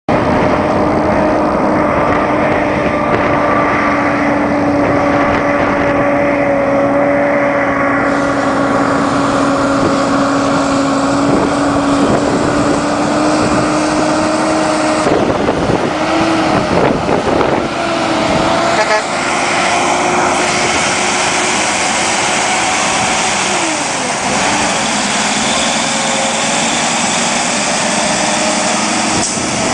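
Diesel engine of a road train prime mover hauling multiple loaded trailers, pulling away and passing close by under load, with a rising hiss of tyres and air as it nears. The engine note dips and recovers at gear changes, once near the middle and again near the end.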